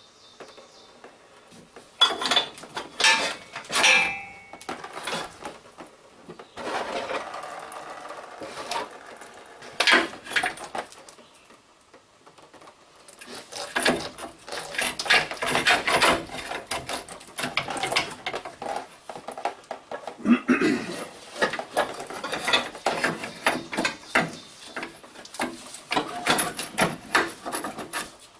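Old, rotted steel transmission cooler lines being twisted and tugged out of their fittings on an Allison transmission: irregular metallic clicks, rattles and scraping. A long stretch of dense scraping and rubbing starts about halfway through.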